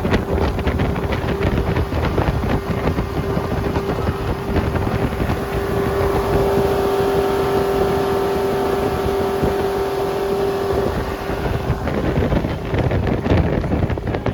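Boat motor running at a steady pitch, with wind buffeting the microphone.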